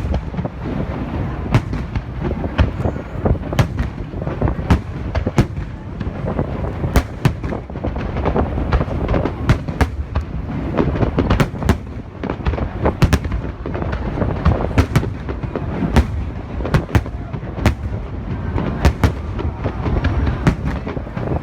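Aerial fireworks display going off continuously: many sharp bangs at an irregular pace, several a second at times, over a steady low rumble of booming shell bursts.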